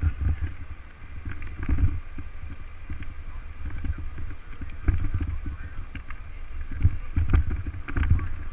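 Wind buffeting the microphone of a ride-mounted camera, with a constant low rumble and irregular thumps and rattles from riding over cracked, broken pavement.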